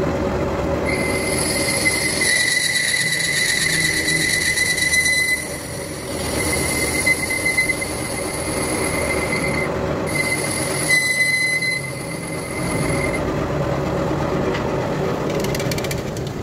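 Lathe turning a motorcycle wheel's brake drum while a cutting tool skims its inner surface, the tool giving a steady high-pitched squeal over the running lathe. The squeal starts about a second in, breaks off briefly twice near the middle and stops a few seconds before the end, leaving the lathe running.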